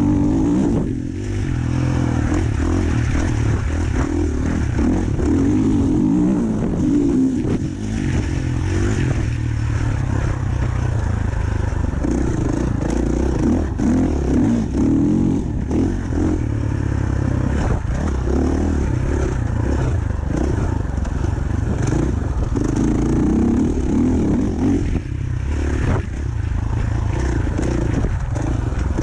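Dirt bike engine running under load, revving up and down with the throttle and dropping off briefly a few times, with knocks and rattles from the bike over rough ground.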